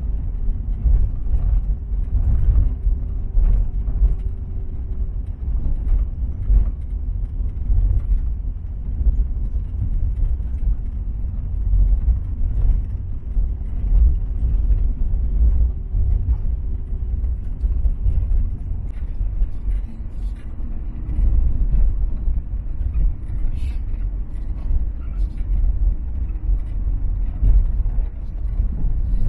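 Vehicle driving on a rough road: a steady low rumble of engine and tyres, with a faint steady hum and scattered small rattles and knocks.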